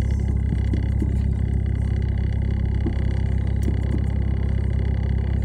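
Car engine idling while the car stands still, heard from inside the cabin as a steady low hum.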